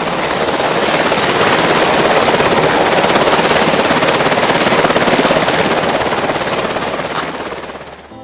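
A loud, dense rapid rattle that builds and then fades away near the end.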